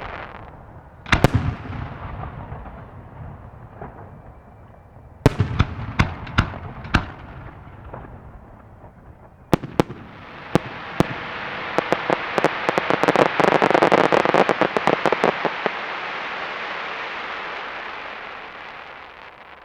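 Fireworks display: shell bursts bang about a second in and again several times between five and seven seconds, two sharp cracks come near ten seconds, then a long dense crackle of many small pops swells, peaks and fades away near the end.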